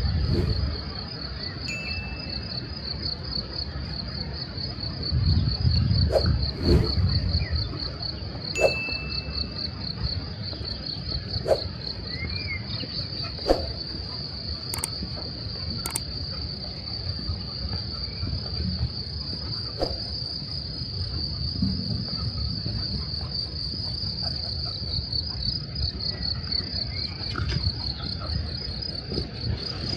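Meadow insects chirring in a steady, fast pulse. Under it there is a low rumble, loudest about five to seven seconds in, and a few sharp clicks.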